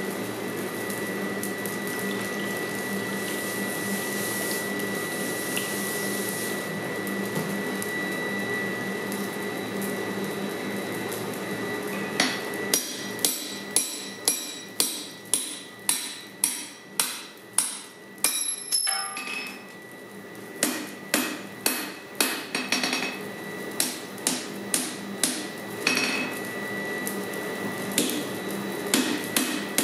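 A hand hammer strikes a hot punch driven into red-hot square steel bar on the anvil, hot punching a 20 mm hole through the bar. The blows ring and come about two a second, starting some twelve seconds in after a steady background hum, and pause briefly about two-thirds of the way through.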